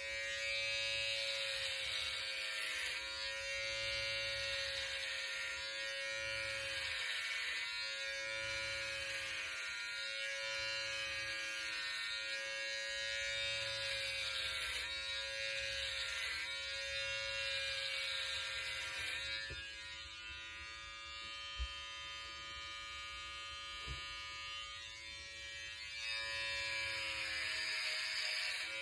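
Cordless electric hair clippers running with a steady buzz, shaving a head down to the scalp. The tone wavers every second or two with the strokes and is a little quieter for a few seconds past the middle, where there are two faint clicks.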